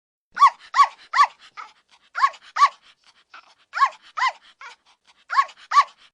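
A puppy yipping: short, high-pitched barks that rise and fall in pitch, about nine of them in quick pairs and triplets, with fainter yelps between.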